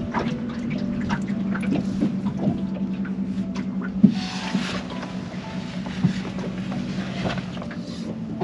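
A steady low motor hum, with scattered clicks and knocks over it and a short hiss about four seconds in.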